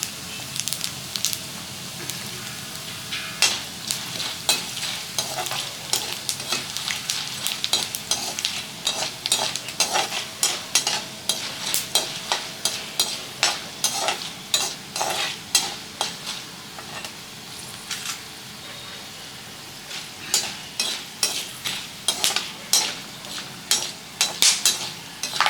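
Peppercorns and cumin seeds frying in hot oil in a kadai, sizzling steadily, while a spatula stirs and scrapes the pan in a quick run of scrapes, about one or two a second. The stirring pauses briefly a little past the middle.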